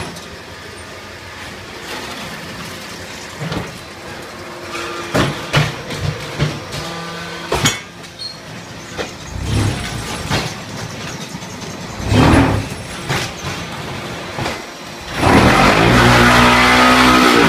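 QT5-15 automatic concrete block machine at work. Scattered metal clanks and knocks come first, then a couple of low rumbling surges. About fifteen seconds in, a loud, steady vibrating buzz sets in.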